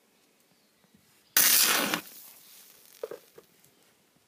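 Stick-welding arc struck by an electrode on steel plate, run off a LiFePO4 battery: a sudden loud, harsh burst of noise about a second and a half in, lasting just over half a second before it cuts off. Two brief fainter pops follow about a second later.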